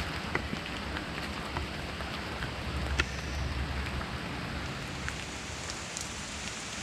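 Steady heavy rain falling, with scattered sharp drip ticks close by and one louder drop about three seconds in.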